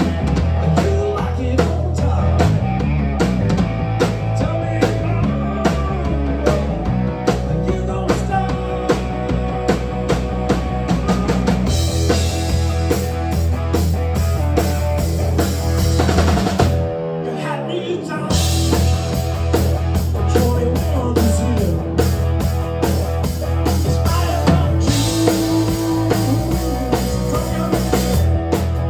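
Live rock band playing with electric guitar, bass guitar and drum kit. A little past halfway the drums stop for about a second under a long downward slide in pitch, then the full band comes back in.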